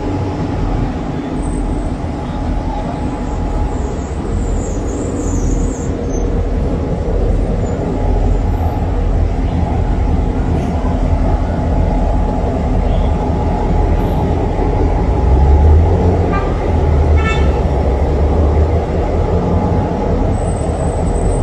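Diesel locomotive engine idling, a steady low rumble with a constant hum, swelling briefly louder about three-quarters of the way through.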